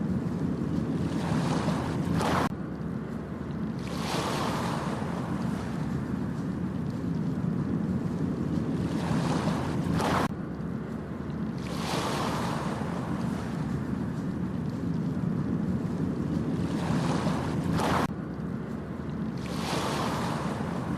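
Ocean surf on a beach: a wash of breaking waves swells and ends abruptly about every eight seconds, over a steady low rumble of wind and sea.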